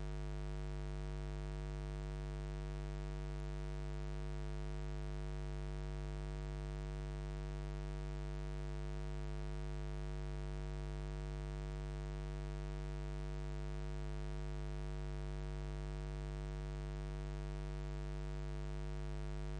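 Steady low electrical mains hum: a buzzing drone with a ladder of overtones and a faint hiss above it, unchanging.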